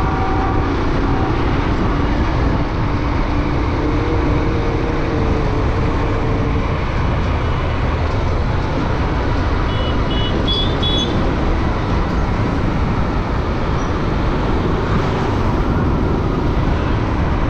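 Steady rumble of wind and road noise from a motorcycle riding through traffic. A few short high-pitched beeps sound about ten seconds in.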